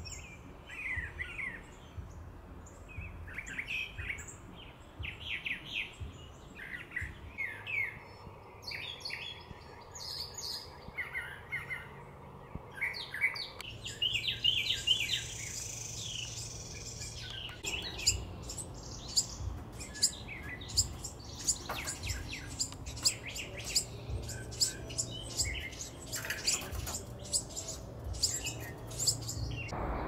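Brown thrasher singing a run of varied short phrases. About 14 s in, recently fledged Carolina wren juveniles take over with many short, sharp calls repeated several times a second.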